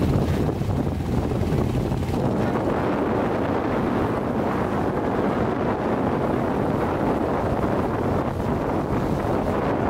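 Motorboat under way, its engine running steadily, with wind buffeting the microphone.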